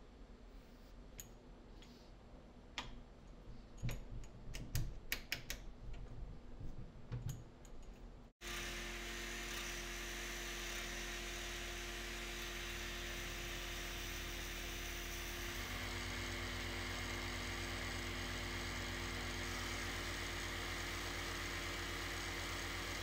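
A few light clicks and knocks as the shop-made lathe duplicator's follower pin is handled. Then, after about eight seconds, a wood lathe and its dust extraction run steadily, with the sound growing fuller about two-thirds of the way in.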